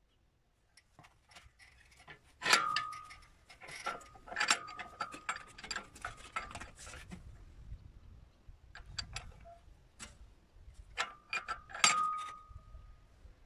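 Sheet-metal strip clamped in a bench vise being bent by hand with a steel lever: irregular metallic clanks and knocks. The two loudest, about two and a half seconds in and near the end, leave a short metallic ring.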